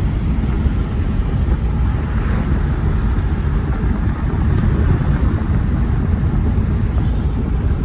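Steady driving noise of a 2018 Mercedes-AMG E43 at cruise: a loud, even low rumble from the car and road, with the hiss of tyres on wet pavement.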